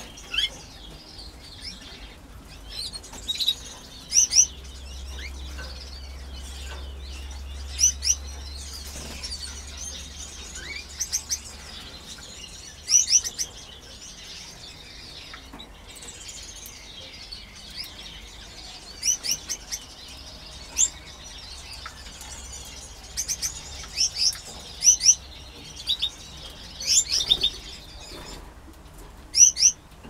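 Canaries chirping: short, high call notes in clusters of two or three, scattered every second or two.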